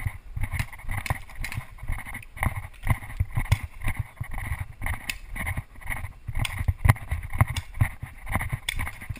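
Footsteps of a paintball player moving fast over grass and dirt, picked up by a camera he carries, as an uneven run of thuds with jostling gear and a few sharp clicks.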